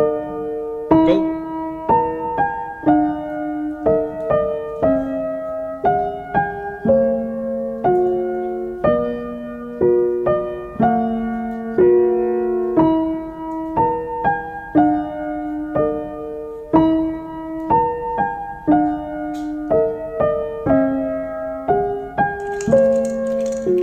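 Background piano music: a slow, gentle melody of struck notes, each fading away, about one or two a second.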